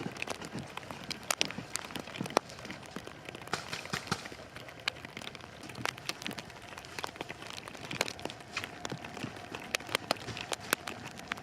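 Plastic wrap crinkling and crackling as it is handled, a dense run of sharp, irregular snaps and clicks.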